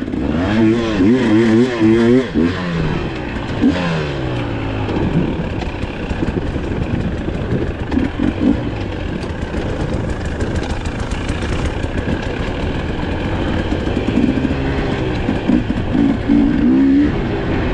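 Dirt bike engines revving up and down in quick blips, loudest in the first couple of seconds and again near the end, over a steady rumble of idling engines.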